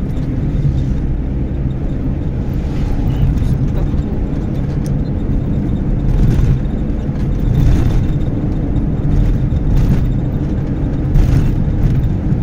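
Steady low rumble of a moving car, road and engine noise heard from inside the vehicle.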